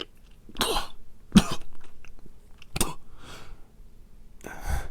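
A man coughing several times in short, irregular bursts, with heavy breaths between: the acted, laboured coughing of a character dying from a gunshot wound.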